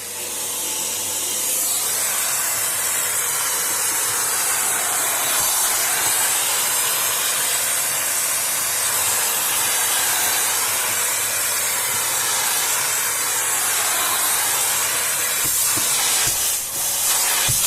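Compressed air hissing steadily as it blows dust out of the inside of an opened laptop, with a brief break near the end.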